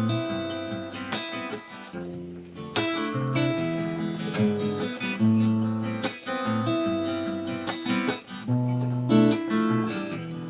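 Acoustic guitar playing an instrumental introduction, plucked and strummed chords with a steady rhythm.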